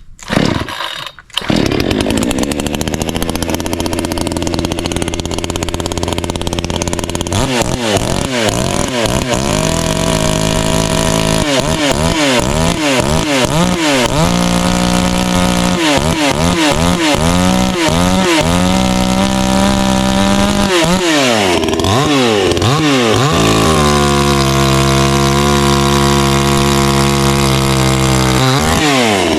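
Garwinner gas chainsaw starting about a second in and running, then revved up and down again and again while bucking a log, with a long steady stretch at high revs near the end.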